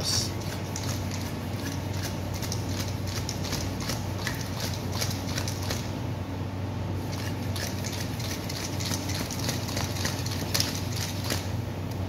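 Irregular clicking, knocking and rubbing of a small electric scooter's rubber inner tube being worked by hand with a tire tool, over a steady low hum.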